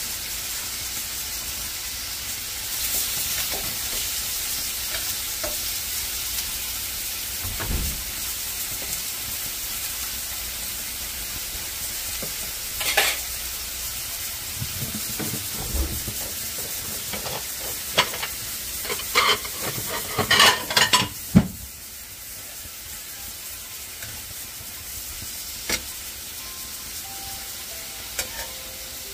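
Thin meat slices sizzling steadily on a ridged cast-iron grill pan. Metal tongs click and tap against the pan, once about 13 seconds in and then in a quick run of sharp clicks about two thirds of the way through.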